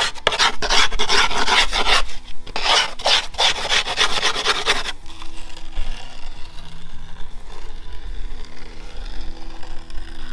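Grip tape on a wooden skateboard deck being rasped along the deck's edge in quick, repeated strokes, loud for about five seconds and then fainter.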